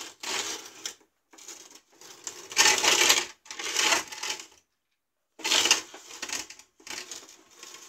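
Heavyweight combat robot's wheels scrabbling and scraping on a gritty concrete floor in a run of short, rough bursts with brief gaps, as it is driven in quick back-and-forth jabs and its wheels spin.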